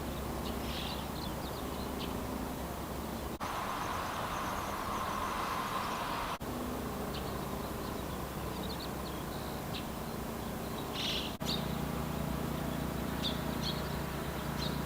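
A steady low hum with scattered short, high-pitched chirps, and a hiss for a few seconds about a quarter of the way in; the sound breaks off sharply three times, as at cuts in the recording.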